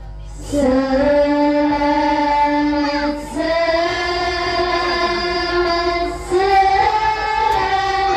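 A young woman's solo voice singing an Islamic devotional qasidah into a microphone, in long, held, ornamented phrases. Two short breaths break the line, at about three and six seconds.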